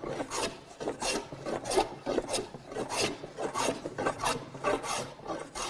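Scrub plane cutting across a wooden board in quick, short strokes, about two a second, each a brief rasping shave of the iron through the wood, taking out twist.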